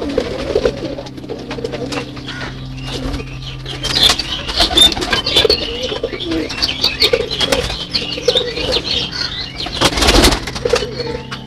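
Domestic pigeons cooing over and over in a loft, with a burst of wing flapping about ten seconds in as a bird takes off close by.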